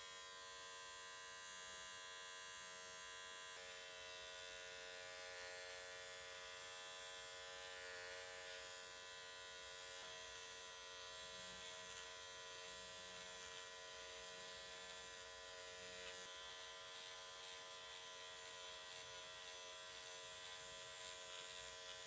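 Dr. Pen electric microneedling pen running with a faint, steady motor buzz as its needle cartridge is worked over the skin of the cheek.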